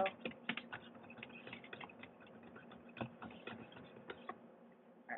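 Cleaning rod being worked inside the barrel of a JG G36C airsoft gun, giving irregular light clicks and scrapes that thin out near the end.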